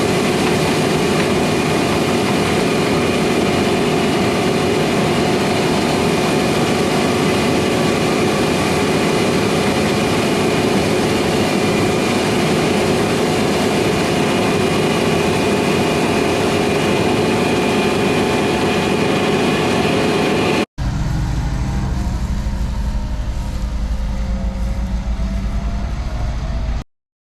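Heavy harvest machinery running steadily, a constant engine drone with a steady whine over it. After an abrupt cut about 21 seconds in, a deeper, low rumble of a heavy engine follows.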